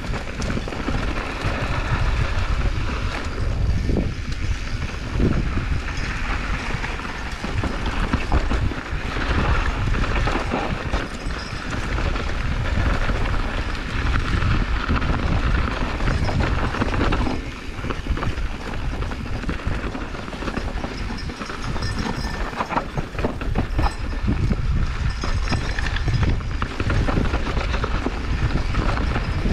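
Mountain bike ridden over a rough dirt trail: a steady rumble of tyres and air on the microphone, with rattling and knocks from the bike over bumps.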